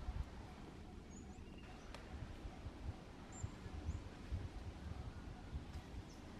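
Steady outdoor background noise with irregular low thumps and a few very short, high chirps.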